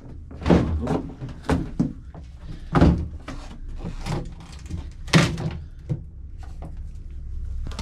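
Irregular thuds and knocks of loose floor panels in a boat's hull shifting under footsteps, the loudest about half a second, three seconds and five seconds in.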